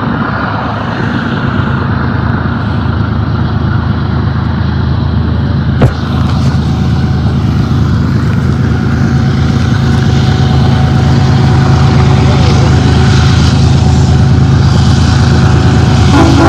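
BNSF diesel locomotives at the head of an intermodal freight train approaching and working upgrade, their engines making a steady low drone that grows gradually louder. A single sharp click about six seconds in.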